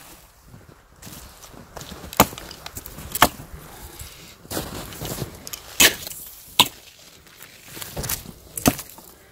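A series of irregular sharp knocks and clicks, roughly one a second, with two close together near the end.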